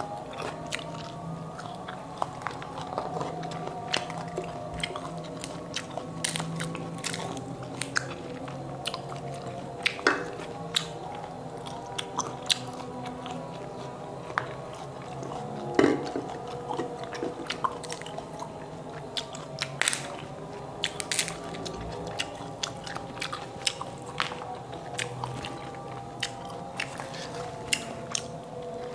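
Close-mouth eating sounds of motoa fruit: the fruit skins are cracked and peeled by hand, and the flesh is bitten and chewed, with many sharp clicks and crunches.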